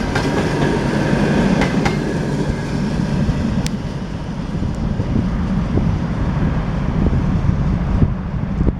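Passenger train carriages rolling past on the rails with a steady rumble and wheels clicking over rail joints. The higher part of the sound thins out near the end as the train draws away.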